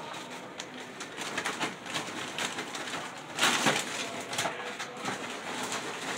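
Crinkling and crunching of Doritos tortilla chips and their plastic as they are handled and layered into foam trays: a run of small crackles, with one louder crunch about three and a half seconds in.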